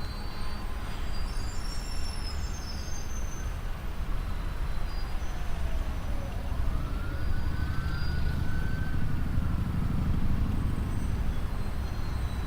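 Steady low rumble of road traffic that grows louder in the second half, with faint wailing tones rising and falling around the middle.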